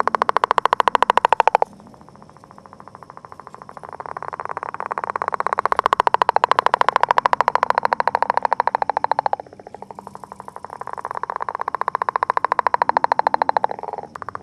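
Northern leopard frog breeding calls: long, snore-like trains of rapid pulses that swell louder over several seconds and then break off suddenly, about two seconds in and again about nine and a half seconds in, with fainter pulsing carrying on between the loud calls.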